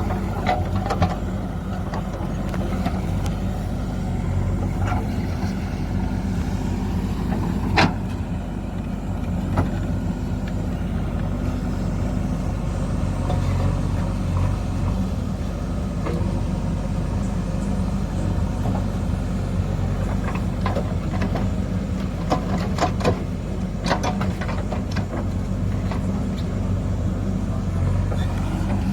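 Diesel engine of a JCB 3DX backhoe loader running steadily under work, with a sharp knock about eight seconds in and a run of clanks and knocks later on.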